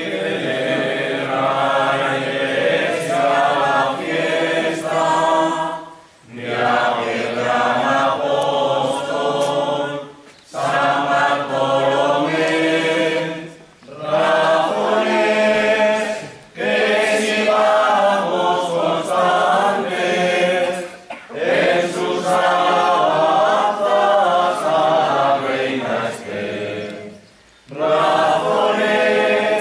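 A group of people singing together without accompaniment, in sung phrases a few seconds long with short breaks for breath between them.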